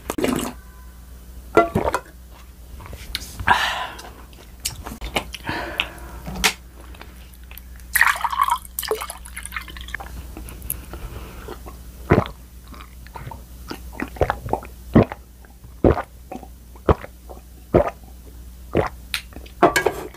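Close-miked eating sounds: chewing and mouth noises, with scattered sharp clicks and clinks of utensils against dishes and a few short slurps or sips.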